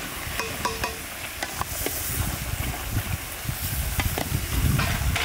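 Olives frying in a wide steel pan, stirred with a long metal spatula: a steady sizzling hiss with scattered scrapes and clicks of metal on the pan. A low rumble builds underneath from about two seconds in.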